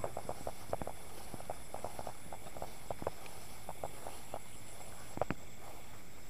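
Scattered, irregular soft clicks and taps, with a louder double tap about five seconds in, over a steady high-pitched drone of night insects.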